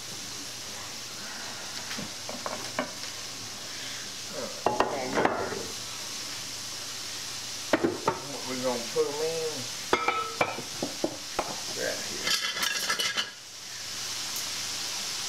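Hot oil sizzling steadily as coated pieces of chicken of the woods mushroom deep-fry in a pan on the stove, with clinks, clatter and scraping of utensils and pans throughout.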